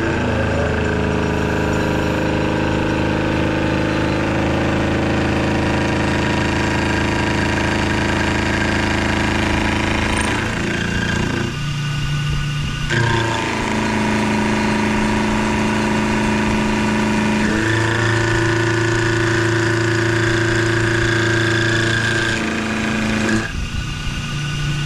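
Vertical milling machine running, its end mill cutting into a metal pistol frame clamped in a vise: a steady machine hum and whine with cutting chatter, its pitch shifting a few times.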